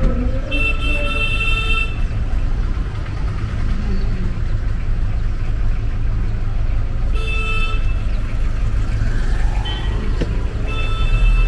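Vehicle horns honking three times, each toot about a second long: one about half a second in, one around seven seconds in, and one near the end. Underneath is a steady low rumble of engine and road noise.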